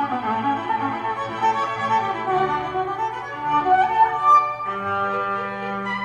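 Background music on bowed strings led by a violin: a slow melody of shifting notes, settling into long held notes near the end.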